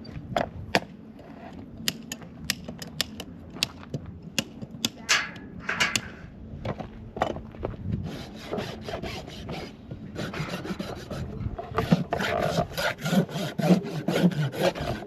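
Farrier's rasp filing a horse's hoof in quick repeated strokes, which come thick and steady from about halfway through; scattered sharp taps come before them.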